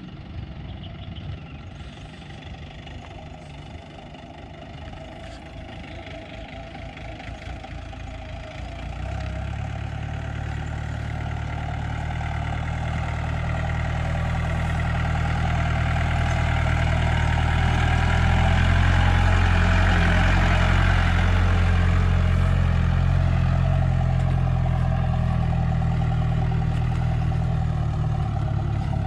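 Mahindra jeep engine running as it climbs a steep, rutted dirt track in two-wheel drive; the low engine drone gets much louder about nine seconds in and keeps building as it pulls uphill.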